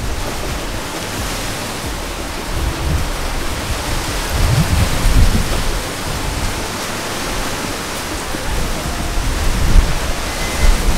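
Strong wind buffeting the camera microphone: a steady rushing hiss with gusty low rumbles.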